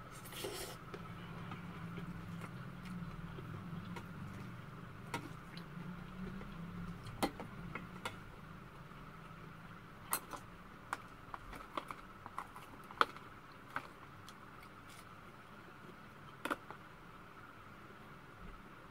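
Wooden chopsticks clicking and scraping against a stainless steel bowl while mixed rice is picked up and eaten, about a dozen light, sharp clicks, most of them in the second half. Low chewing noise runs through the first seven seconds or so.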